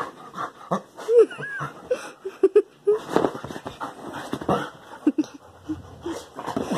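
Dog whining in many short, wavering cries, with panting and the rustle and knock of its scrambling. It is whining at a cat perched just out of its reach.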